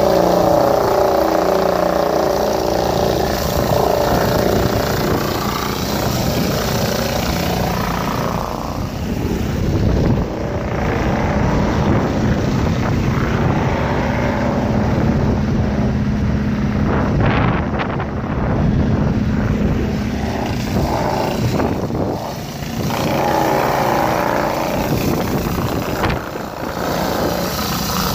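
Industrial hot-water pressure washer running, its rotary surface cleaner jetting hot water onto paving slabs with a loud, steady mechanical drone. Through the middle stretch the spray hiss falls back and a steady low hum comes to the fore.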